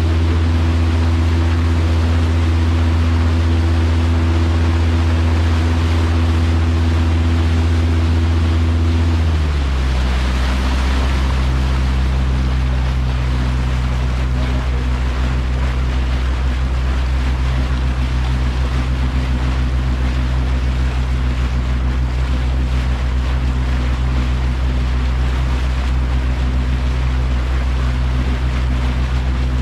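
Boat motor running steadily while the boat is under way, its note dropping to a lower steady pitch about nine seconds in. Water rushing past the hull and wind hiss run under it.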